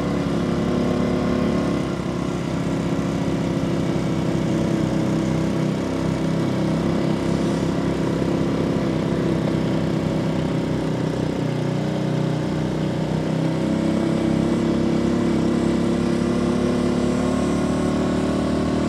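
Small motorbike engine running steadily while riding along a road, with wind and road noise; the engine note shifts briefly partway through.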